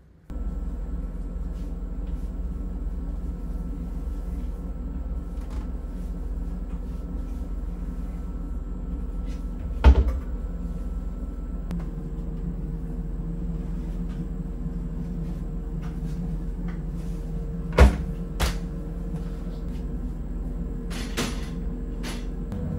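Front-loading drum washing machine running with a steady hum whose tone shifts about halfway through. Several sharp knocks from cupboards being opened and closed, the loudest about ten seconds in.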